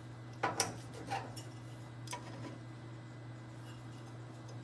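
A few light metallic clicks and taps as a clamp and square are set and tightened on a steel welding plate, over a steady low hum. The clicks come in the first half and stop after about two seconds.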